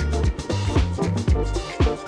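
Background music with a funky beat: bass and drum hits about twice a second.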